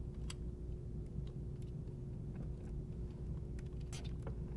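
A few faint, scattered plastic clicks as a nylon zip tie is threaded around two cables and pulled snug, over a steady low hum.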